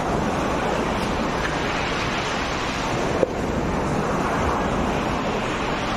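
Steady rushing of sea surf on the shore mixed with wind on the microphone, with a single sharp pop about three seconds in.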